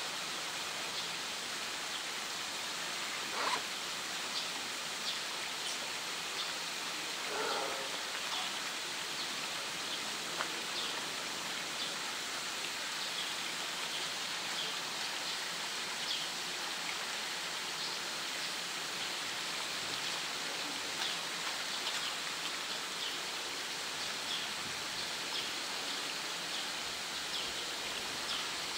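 Steady hiss of water, with faint scattered ticks throughout and two short, slightly louder sounds about three and seven seconds in.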